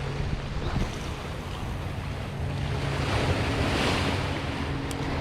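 Surf washing on the shore with wind buffeting the microphone, the wash swelling about three seconds in; a single sharp click near the end.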